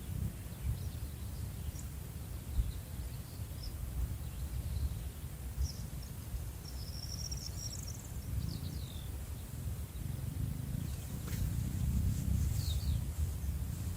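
Outdoor nature ambience: a steady low rumbling noise underneath, with faint, high bird chirps and short calls scattered through.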